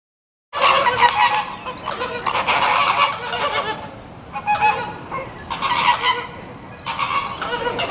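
A flock of American flamingos honking in a loud, overlapping goose-like chorus, the calling that goes with their group courtship display of head-flagging and wing-flashing. The chorus starts about half a second in and eases off for a moment around the middle before picking up again.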